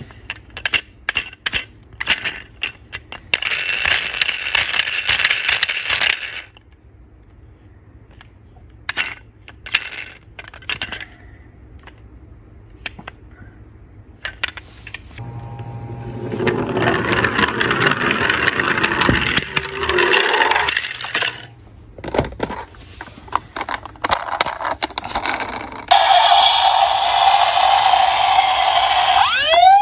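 Plastic toy ambulances handled in a cardboard box: sharp clicks and rattles, with two stretches of scraping and rubbing against the cardboard. Near the end, the red toy ambulance's electronic sound unit switches on with a steady buzzing tone as its roof light glows.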